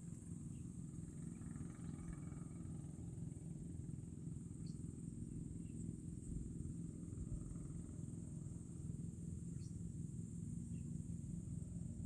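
Wind buffeting the microphone: a low, uneven rumble, with a steady high-pitched insect drone above it.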